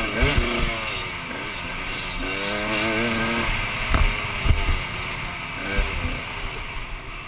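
Dirt bike engine heard close up from the bike, revving up and falling off again and again as the rider works the throttle. A couple of sharp knocks come about four seconds in.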